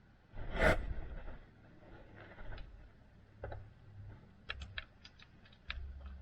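Hands working with tools and parts: a brief scraping rustle about half a second in, then a run of light, irregular clicks and taps.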